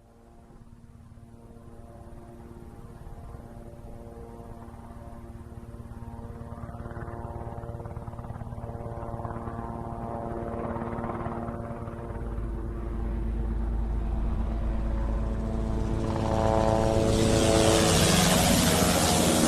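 Enstrom 480B turbine helicopter approaching in a flyover, its rotor and engine tones growing steadily louder. Near the end it comes close overhead and a strong rushing noise rises over the tones.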